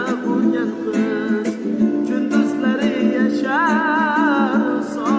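Music: a song with a plucked-string accompaniment under a wavering, ornamented melody line.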